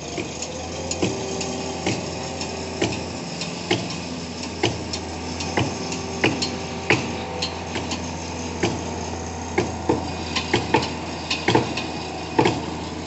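Construction-site din: a steady hum of heavy machinery engines with irregular sharp knocks and clanks of hammering, roughly two a second.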